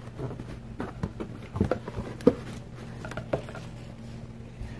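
Cardboard shipping box being opened with a box cutter: the blade slicing through the packing tape and the flaps being pulled apart, a run of short scrapes, rustles and light knocks, with the loudest knock a little before halfway.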